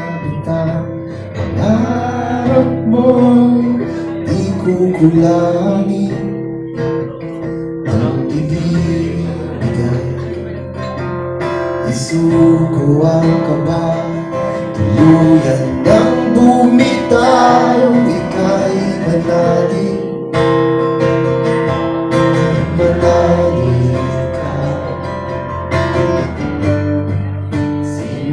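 A man singing while strumming and picking an acoustic guitar, played live.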